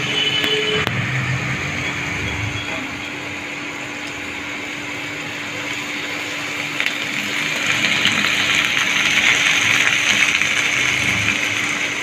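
Sweet corn with ginger-garlic paste and salt sizzling in hot oil in a pan while being stirred, the sizzle growing louder in the second half.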